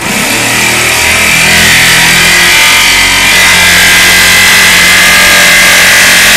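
Bosch electric jigsaw starting up and running steadily, cutting through a panel.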